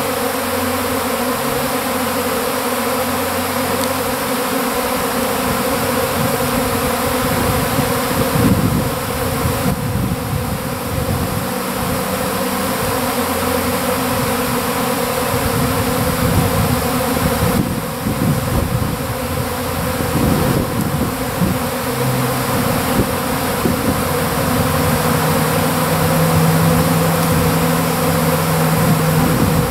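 A honeybee swarm buzzing: a loud, steady hum of a great mass of bees in flight as the colony swarms out of its hive.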